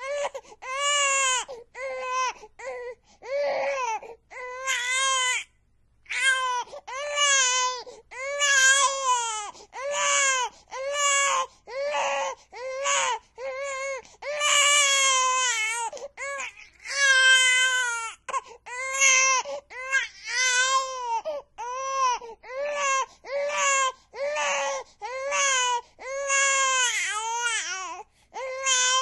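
Infant crying hard: a run of loud, pitched wails, each rising and falling, broken by quick breaths, with a short pause about five and a half seconds in.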